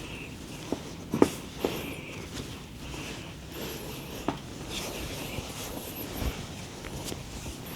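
Hands working on a person's body during massage: rubbing and handling sounds with a few sharp slaps or pops, the loudest about a second in.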